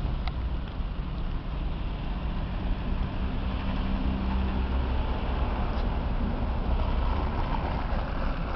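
Slow queue of cars on a snow-covered motorway: a steady low rumble of engines running at crawling speed with tyre noise on the snow, a little louder near the end.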